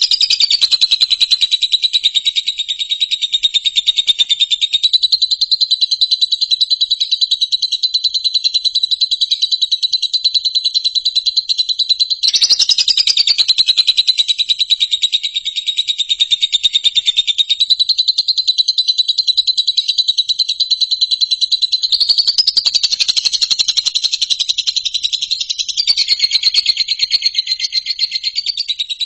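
An animal's continuous, very fast pulsing high trill, played as bird-training audio; its pitch and fullness shift slightly a few times but it never breaks.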